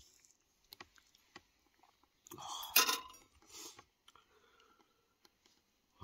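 Handling noise from camp cooking gear and kebab skewers: a few light clicks, then a short rustling scrape with a sharp knock about two and a half seconds in, and a smaller rustle just after.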